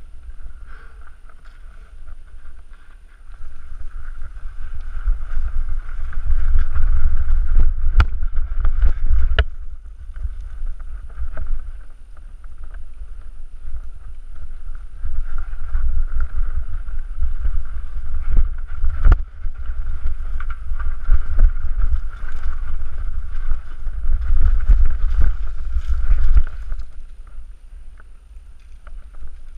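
Mountain bike rattling down a rough rocky trail, with heavy wind rumble on the microphone, sharp knocks as the bike hits rocks, and a steady high buzz. The noise drops off about three seconds before the end as the bike slows.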